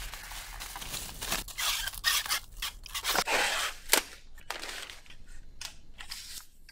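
Clear plastic bag packaging crinkling and rustling in irregular bursts as parts are pulled out and unwrapped, with one sharp click about four seconds in.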